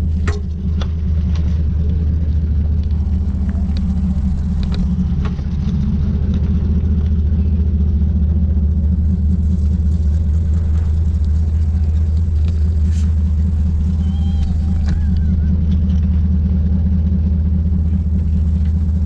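A machine running with a steady low rumble, with scattered light clicks and knocks over it.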